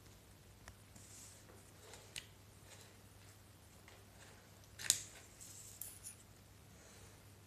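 Faint handling noises from an unboxing: a few light clicks and short rustles of the packaging and device, the loudest a sharp click about five seconds in, over a steady low electrical hum.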